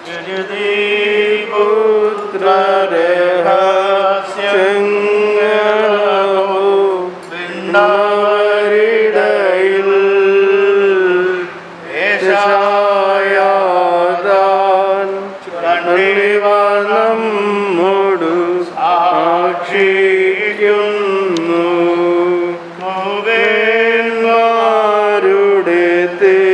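A male voice chanting a liturgical hymn: long, steady sung notes in phrases, broken by short pauses for breath.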